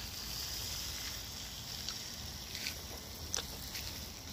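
Water spraying from a garden-hose sprinkler nozzle onto a vegetable bed: a steady hiss, with a low wind rumble on the microphone.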